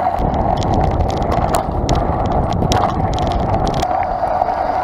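Mountain bike riding over a dirt forest trail, heard from a handlebar-mounted camera: a continuous rough rumble of knobby tyres and frame vibration, with many sharp clicks and rattles over bumps that thin out near the end.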